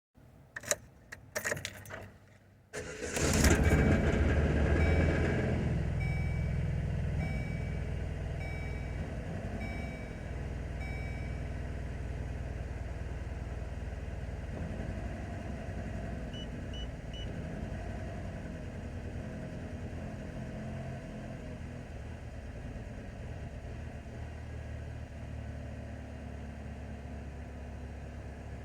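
A few clicks, then the 2004 Chevy Cavalier's 2.2 L Ecotec four-cylinder engine starting about three seconds in, running up high and settling to an idle that wavers; the owner reports a rough idle and surging. A repeating beep sounds for several seconds after the start, and three short beeps come about halfway through.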